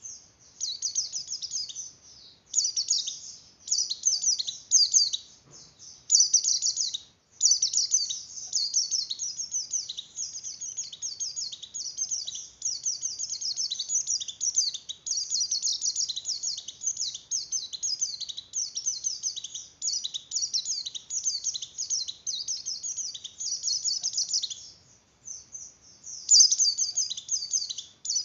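White-eye (pleci) in breeding condition singing a fast, high, nearly unbroken twittering song, with short breaks and one pause of about a second and a half near the end.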